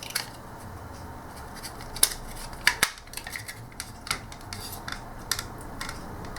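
Small plastic and metal parts of a TV remote control being handled and fitted: irregular sharp clicks and taps, the loudest about two seconds in.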